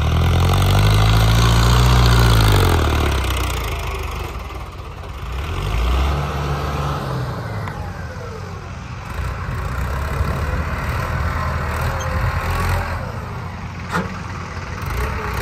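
Hindustan 60 tractor's engine revving up and down as the tractor spins in tight circles. The revs swell and fall over the first three seconds and again about six seconds in, then settle into a steady run.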